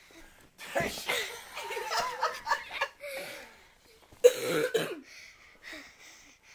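Laughter and voices in two bursts, the first about a second in lasting some two seconds, the second and loudest about four seconds in.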